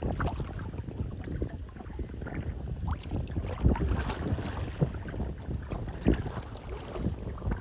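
Wind buffeting the microphone on a boat ride: an uneven low rumble with scattered small knocks.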